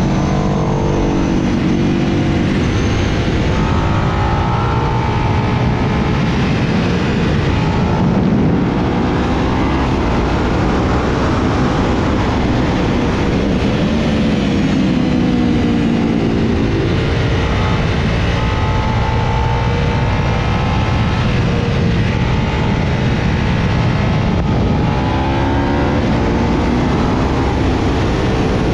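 Sport motorcycle engine at full riding speed, revs climbing and dropping back again and again through gear changes and corners, over loud wind rush.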